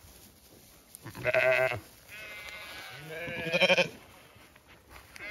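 Zwartbles sheep bleating: two loud bleats, about a second in and about three and a half seconds in, with a fainter, higher call between them.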